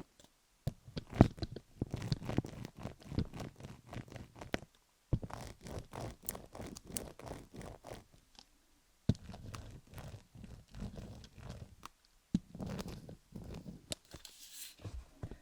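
Close-miked scratching and crunching on a rhinestone-covered dummy-head microphone, a dense run of irregular clicky strokes. It pauses briefly about five seconds in and again around eight to nine seconds.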